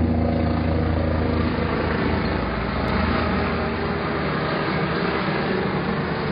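McDonnell Douglas MD-900 Explorer helicopter running: a steady, loud drone of rotor and turbine, with a low hum that is strongest for the first second and a half and then eases into a continuous din.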